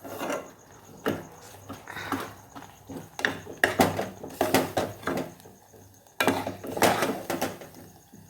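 A spoon scraping and knocking against a cooking pot in irregular strokes, as ginger paste is worked into melted jaggery.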